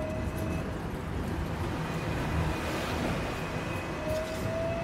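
Hong Kong double-decker tram running along street track, heard from inside: a steady low rumble of wheels on rail, with a thin whine rising slowly in pitch near the end.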